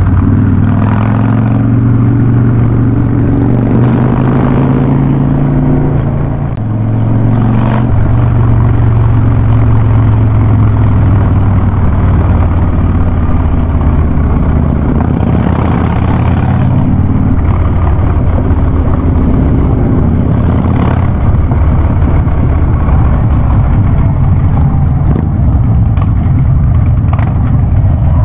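Harley-Davidson Ultra Classic's V-twin engine running loud and deep through a Vance & Hines Big Radius exhaust. Its pitch falls and rises as the throttle changes, with a brief dip in level about six seconds in.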